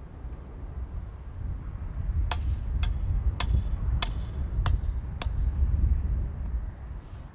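Wind buffeting an outdoor microphone, a low rumble that rises and falls. Over it come six sharp, briefly ringing clicks, evenly spaced a little over half a second apart.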